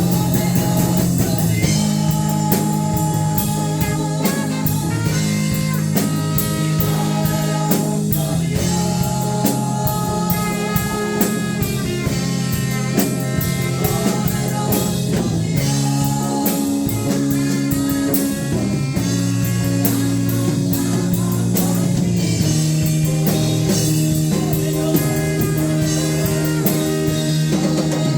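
Live worship band playing: drum kit with steady cymbal strokes, guitar and held chords.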